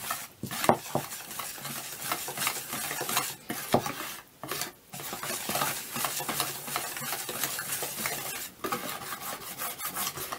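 Wire whisk stirring flour into thin cake batter in a mixing bowl: continuous quick strokes of the whisk through the batter, with a few brief pauses, as the flour is worked in until no lumps remain.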